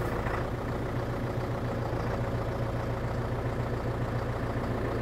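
New Holland tractor's diesel engine running steadily at a constant speed.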